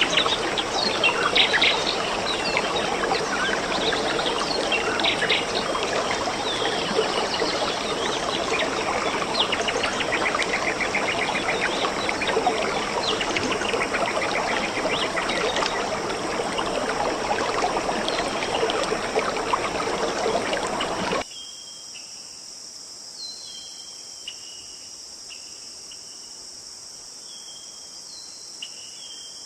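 Many birds chirping and singing over a steady rushing background. About two-thirds of the way in the sound cuts off suddenly, giving way to a quieter insect chorus: a steady high hiss with repeated short cricket chirps.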